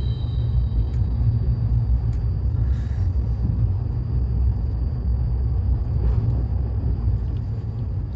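Steady deep rumble, with a faint thin high tone held above it.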